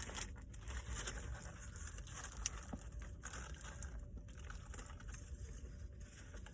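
Faint rustling and crinkling with scattered small clicks as a cheese-filled burger is handled and pulled open, one sharper tick about two and a half seconds in.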